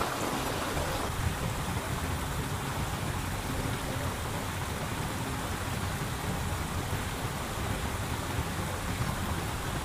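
Muddy flash-flood water rushing steadily down a street, a dense even noise with no breaks.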